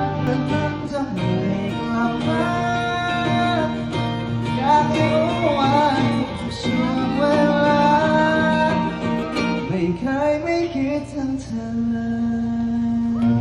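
Live song: acoustic guitar playing under a sung melody of long held and gliding notes.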